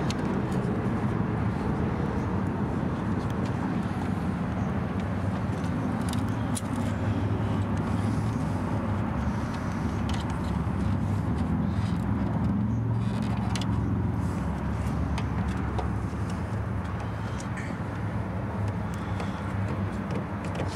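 Steady low engine hum in the background, with a few faint small clicks as a hand screwdriver works the plastic grille screws.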